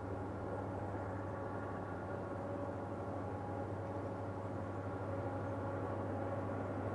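Diesel-electric freight locomotives heard from a distance, working hard up a grade: a steady low engine drone with a hum, growing slightly louder toward the end as they approach.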